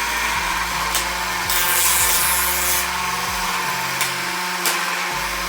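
Homemade combat robot's spinning weapon running at full power, a steady motor whir with a few sharp knocks.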